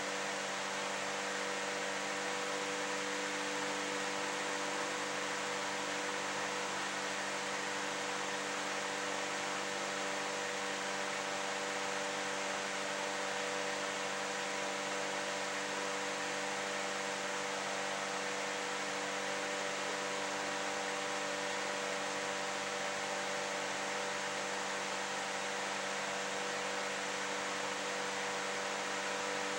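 Steady hiss with a low, even hum beneath it: room tone with no distinct events.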